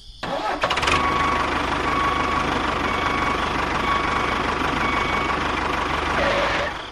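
An engine starts and runs steadily, with a thin whine over it, then cuts off shortly before the end.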